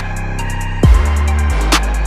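Background hip hop-style music with a steady drum-machine beat: sharp hi-hat and snare hits over a deep kick drum that drops in pitch, and a sustained bass line.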